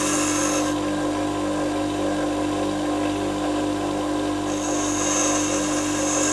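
Osaki bench grinder motor running with a steady hum while a high-carbon steel tap is pressed lightly to the grinding wheel, grinding its taper point back to make a bottoming tap. The grinding hiss sounds during the first second, stops, and comes again from about four and a half seconds in.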